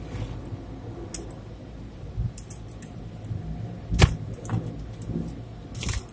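Automatic car wash heard from inside the car: a steady low hum of the wash machinery under scattered taps and knocks as soft-cloth strips slap over the car. The sharpest knock comes about four seconds in, with another near the end.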